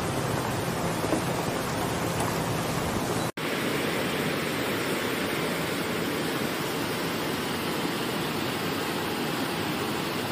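Steady rushing noise of a muddy river in flood, mixed with rain, broken by a brief dropout about three seconds in.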